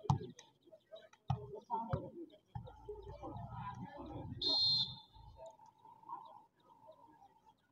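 Referee's whistle, one short trilling blast of about half a second, roughly four and a half seconds in, signalling the serve; faint crowd voices and scattered thumps around it.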